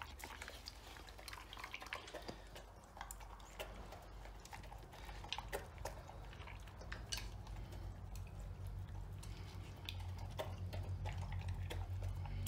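Rottweiler-mix dog eating wet food chunks from a clay bowl: chewing and licking, with frequent small clicks of teeth and food against the bowl.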